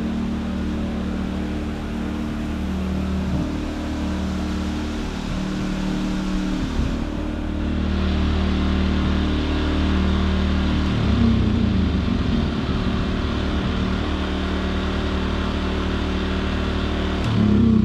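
Champion inverter generator running under the load of a camper air conditioner, a steady engine hum that is not running hard. Its engine pitch shifts about two-thirds of the way through.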